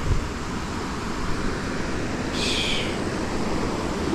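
Creek water rushing steadily over rocks. A short, high bird call comes about two and a half seconds in, and a soft thump right at the start.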